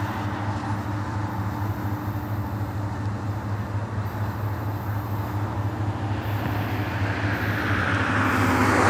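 Approaching BNSF coal train's diesel locomotives, a steady low rumble that grows louder and gains a rising hiss near the end as the train draws closer.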